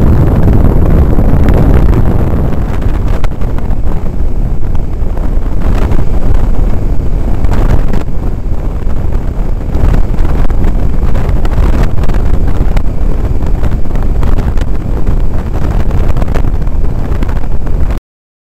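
Heavy wind buffeting on a motorcycle rider's helmet-camera microphone at speed, a loud, rumbling rush with the motorcycle running underneath; it cuts off suddenly near the end.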